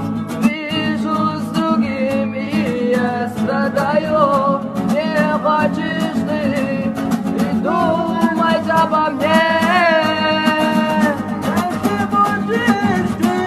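A song with plucked acoustic guitar and a sliding, wavering melody line over a steady low accompaniment.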